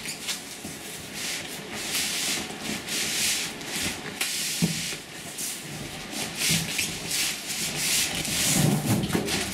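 Cardboard packaging being pulled up off a washing machine, scraping and rubbing in uneven surges.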